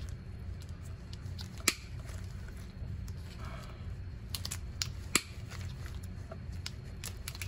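Diagonal cutters snipping through an old rubber CV axle boot: several sharp snips a second or more apart, the loudest about five seconds in.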